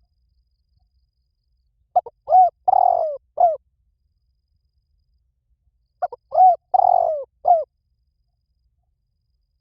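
Spotted dove cooing: two calls about four seconds apart, each a quick run of short coos around one longer, drawn-out coo.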